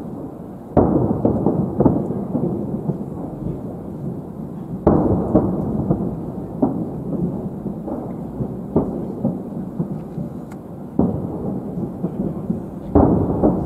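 Distant aerial fireworks shells bursting: about six deep booms, the strongest about a second in, near five seconds and near the end, each trailing off in a long rumble.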